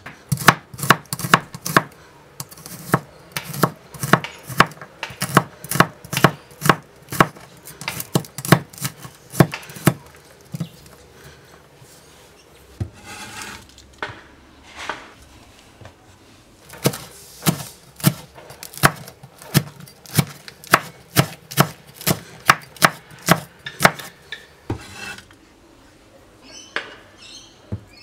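Wide-bladed kitchen knife slicing garlic cloves on a bamboo cutting board: quick, even knocks of the blade against the board, about three a second, in two long runs with a pause of a few seconds between them that holds softer scraping.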